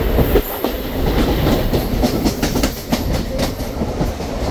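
Mumbai suburban local train running between stations, heard from inside the coach: a steady rumble, with a quick run of sharp clacks from the wheels over rail joints about halfway through.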